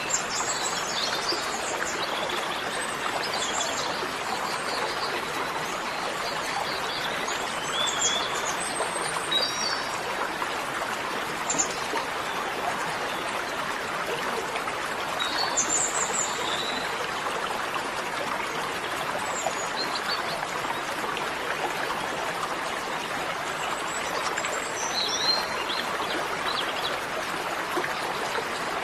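Steady rush of running water, like a stream, with small birds chirping now and then.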